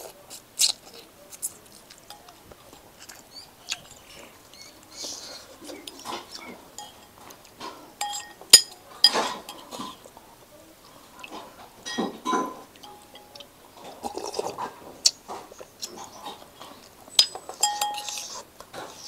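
Metal spoon and chopsticks clinking and scraping against a ceramic noodle bowl: a string of sharp, irregular clinks, some of them ringing, the loudest about halfway through.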